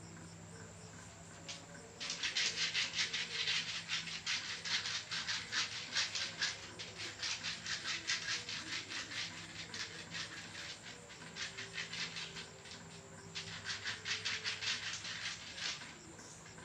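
Fast rhythmic rubbing of a massage stroking over skin, several strokes a second, starting about two seconds in, pausing briefly and easing off near the end.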